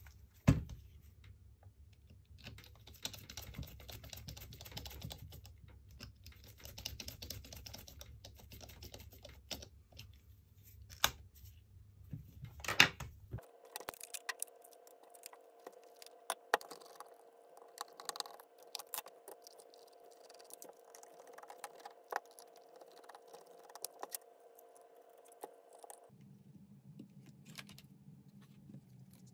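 Scattered small clicks and taps of a Nikon D90 DSLR body being handled and worked on with a small screwdriver, the loudest just after the start and about halfway. Under them runs a faint steady hum that shifts twice.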